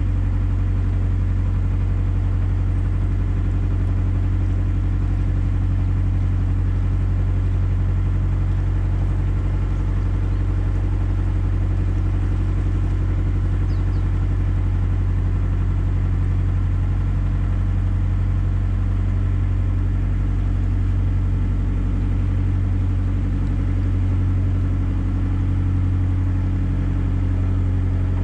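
Narrowboat's diesel engine running steadily at cruising speed, a constant low throb.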